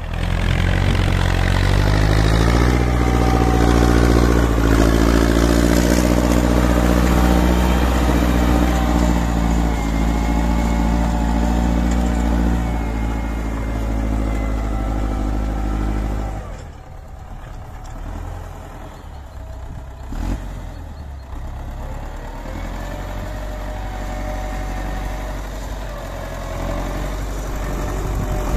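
Tractor-style engine sound running steadily. About sixteen seconds in it drops to a much quieter, lower running note.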